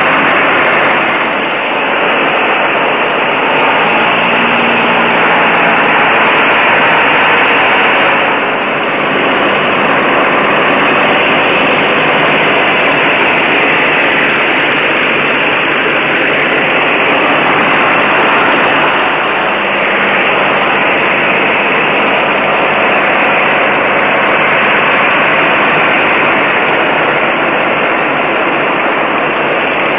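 Cockpit noise of a P-40 Warhawk in cruising flight: its V-12 engine and propeller running steadily under a loud wash of rushing air, heard from inside the cockpit. The level dips briefly three times.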